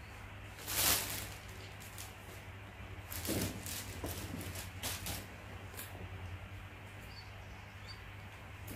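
Rustling and crinkling of a new handbag's packaging, its plastic wrapper and paper stuffing, being handled and pulled out. It comes in a few short bursts, the loudest about a second in, over a low steady hum.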